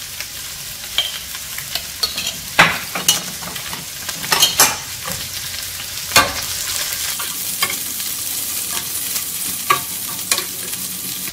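Sliced bitter melon and garlic sizzling in oil in a nonstick skillet. A metal spoon stirring them knocks and scrapes against the pan several times, sharpest a few seconds in and again just past the middle.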